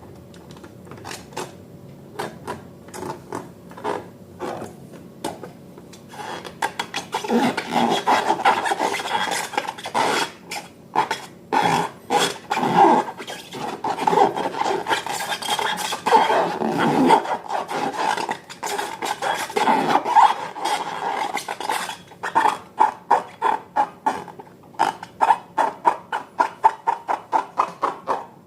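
Slime being mixed and worked by hand: sticky squishing, scraping and small clicks, sparse at first and busier from about seven seconds in. It turns into a quick, regular run of squelches over the last few seconds.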